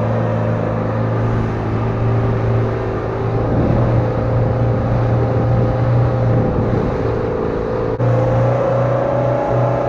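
A fishing boat's engine running steadily at cruising speed, a constant low drone under the rush of water and wind. About eight seconds in there is a sudden break and the pitch shifts slightly.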